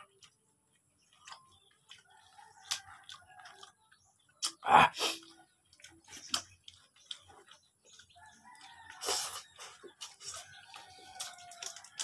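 Eating sounds of a man eating rice and noodles by hand: scattered lip smacks and chewing clicks, with one loud thump about halfway through. A chicken calls in the background twice, briefly near the start and again for a couple of seconds later on.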